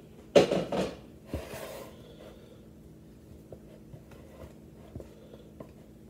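Mixing bowl and spatula clattering and scraping as cake batter is scraped into a pan: a loud knock-and-scrape about half a second in, a softer scrape around a second and a half, then a few light taps.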